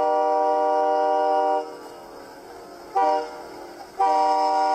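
Train air horn sounding a steady multi-note chord: a long blast that stops about a second and a half in, a short blast about three seconds in, then another long blast from four seconds on, the short-then-long ending of a grade-crossing signal. A faint rushing noise fills the gaps between blasts.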